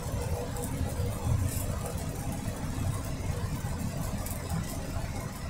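Steady low rumble of a vehicle driving at highway speed on a wet road, heard from inside the cab: engine and tyre noise.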